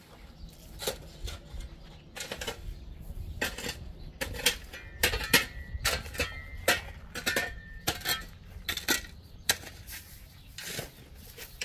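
A shovel scraping up gravelly rubble, with irregular scrapes and knocks against the metal wheelbarrow; a brief metallic ring sounds about five to seven seconds in.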